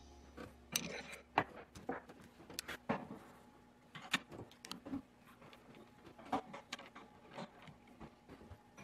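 Irregular metallic clicks and knocks of a wood lathe's scroll chuck being handled and fitted on the headstock, then a chuck key turning in the chuck to close its jaws. The lathe is not running.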